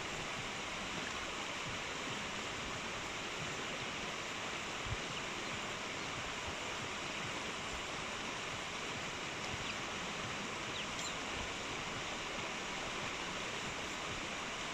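Steady rushing hiss of a flowing stream, unchanging throughout.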